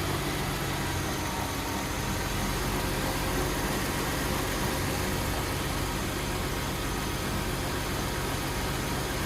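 Mercedes-Benz C-Class W204 engine idling steadily with the accessory belt running quietly, with no squeal or whistle now that a worn belt pulley has been replaced.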